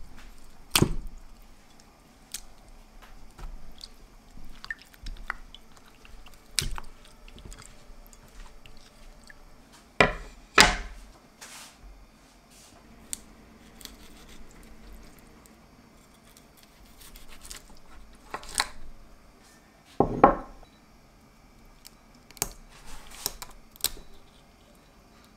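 Close-up sounds of handling and shelling whole raw shrimp: scattered soft, wet clicks and crackles, with a handful of louder sharp knocks spread through.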